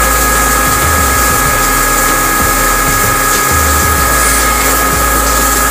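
CNC lathe turning a large metal disc, cutting steadily with a high, even whine.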